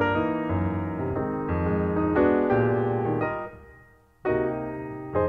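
Background piano music playing sustained chords; the notes die away about three and a half seconds in, then new chords are struck just after four seconds and again near the end.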